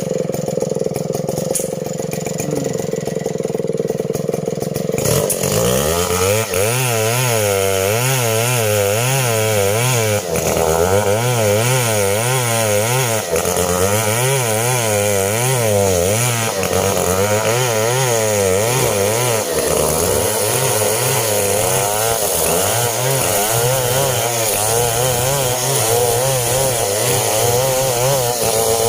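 STIHL chainsaw running, then from about five seconds in working under load through coconut-palm wood, its engine note wavering up and down in a repeating pattern as the cut goes on.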